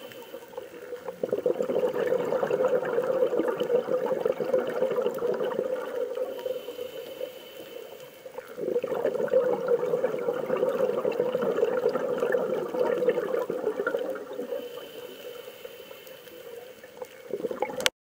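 Underwater bubbling from a scuba diver's exhaled air. There are two long stretches of loud bubbling, each of several seconds, with a brief dip between them, then a quieter spell and a short burst before the sound cuts off suddenly.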